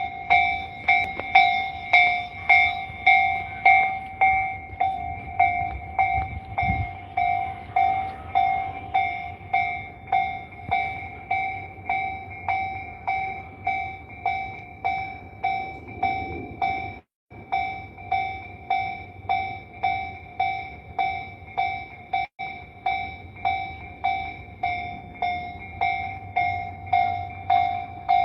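Japanese railway level-crossing warning bell ringing in an even beat of about two dings a second, the signal that a train is approaching and the crossing is closed. The ringing drops out for an instant twice.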